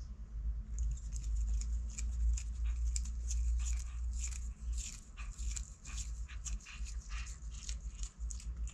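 A cat biting and chewing fresh catnip (Nepeta cataria) leaves: irregular crisp clicks and crunches, several a second, densest in the middle of the stretch. A steady low rumble runs underneath.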